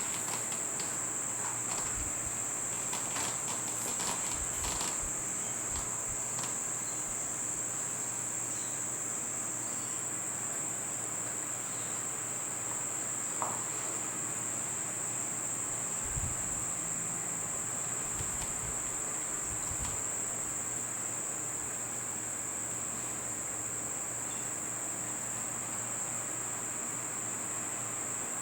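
A steady, unbroken high-pitched insect trill, like crickets, with a few faint clicks in the first few seconds and some soft low thumps later.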